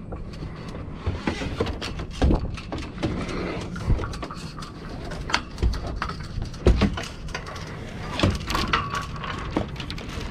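Irregular knocks, thumps and rustling from a person moving about a small sailboat's deck and handling its rigging lines and deck hardware.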